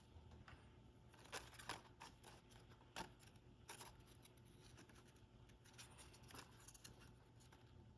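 Faint small clicks and ticks from handling thin wires and a soldering iron during soldering, a few scattered taps over quiet room tone, with a cluster in the first half.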